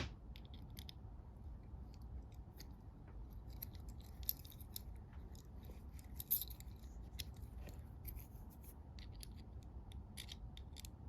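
Cross key being worked into a cross-keyway cabinet lock: faint, irregular small metallic clicks and scrapes of the key against the lock face and pins, with a couple of sharper clicks partway through and near the end.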